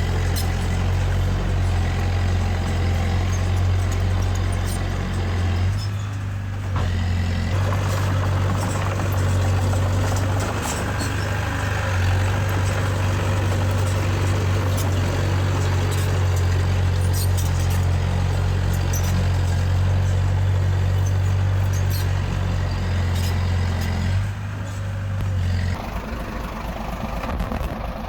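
Heavy diesel earthmoving machinery running steadily with a deep, constant engine hum and scattered sharp clicks and clanks over it. The engine note drops briefly about six seconds in and again near the end, as the machine changes throttle or load.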